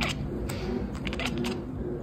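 Cat chattering: a handful of short clicking chitters, one at the start, one about half a second in, a couple around one second and one near a second and a half, trailing off.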